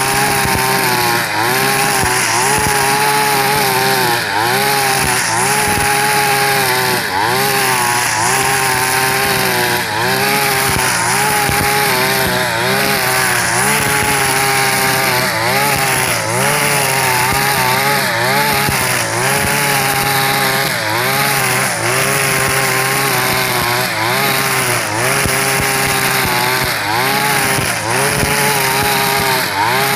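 A 42cc two-stroke backpack brush cutter with a square nylon line runs at high speed through tall cogon grass. Its engine pitch dips briefly and recovers about every one to two seconds as the line bites into the grass on each sweep.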